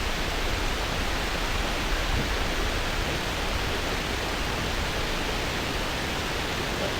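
River water rushing: a steady, even hiss that does not change.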